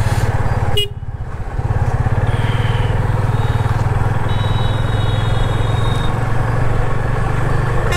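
Yamaha FZ25's single-cylinder engine running as the motorcycle rides through a junction. The engine sound drops briefly about a second in, then picks up again and holds steady.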